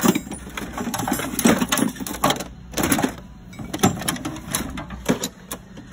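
Tools and packaged kits clattering and clunking in a metal toolbox drawer as a hand rummages through it: irregular knocks and rattles, the loudest about one and a half seconds in.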